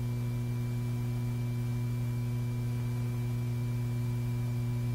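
Steady electrical hum on an old film soundtrack: a low, unchanging buzz with fainter higher tones above it.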